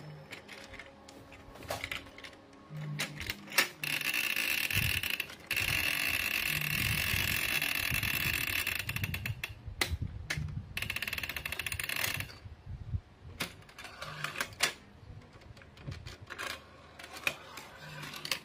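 Plastic clicking and clattering from the push buttons and levers of a toy track playset being pressed, with a small toy train rattling along the plastic track. Busiest stretch of rattling comes in the middle.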